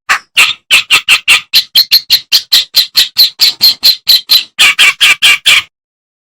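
Kerak basi (clamorous reed warbler) giving a fast run of harsh, chattering notes, about four a second, that stops abruptly near the end.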